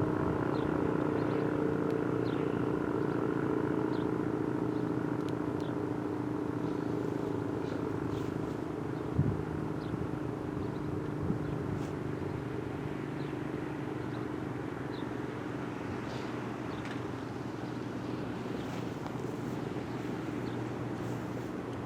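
Outdoor warning siren sounding steady tones that slowly fade, with a short thump about nine seconds in.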